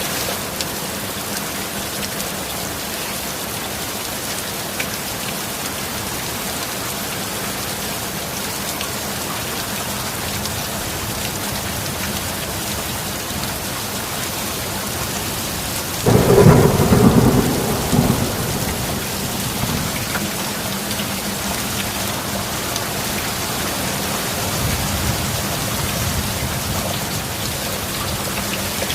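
Steady heavy rain falling, with a sudden loud thunderclap a little past halfway that rumbles on for about two seconds, and a softer roll of thunder near the end.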